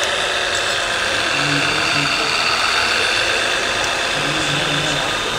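Radio-controlled scale CAT single-drum roller running steadily, its simulated diesel engine sound playing at a constant idle-like pitch.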